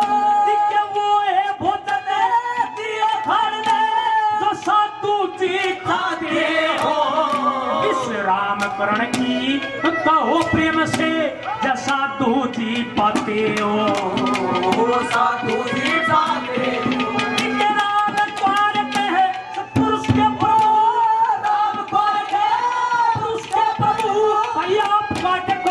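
Live Haryanvi ragni singing: a male voice sings long, sliding held notes into a microphone. Hand-drum strokes and steady instrumental tones accompany him.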